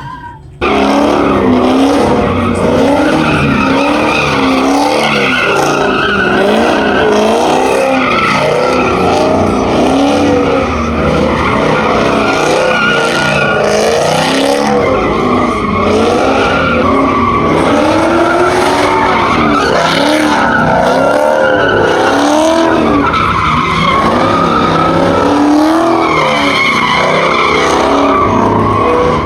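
A vehicle doing a burnout: its engine is revved hard, the pitch swooping up and down again and again, while the spinning tires squeal and skid on the pavement.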